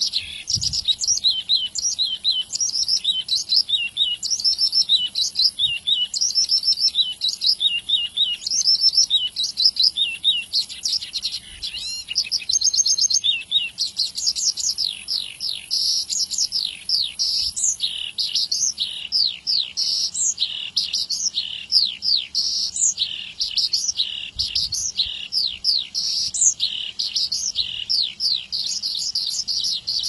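A Javan bush lark (branjangan) singing a long, unbroken, rapid song of high chirps, quick rising and falling whistles and short trills.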